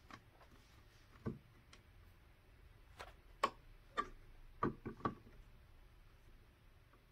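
Small metal camera-rig parts clicking and tapping as a ball head is twisted by hand onto a rig handle: about nine faint, irregular clicks, most of them between three and five seconds in.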